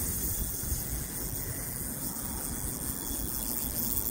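Steady wind noise on the microphone: a low, fluctuating buffeting rumble under a constant hiss.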